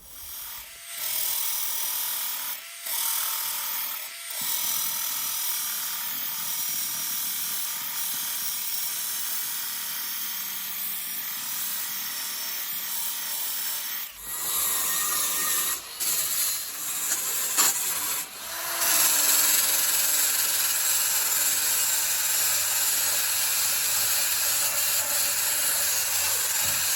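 Stiff bristle brush scrubbing a weathered wooden deck with water, bleach and detergent, a continuous rasping rub. About halfway through it gives way to a louder, steadier hiss.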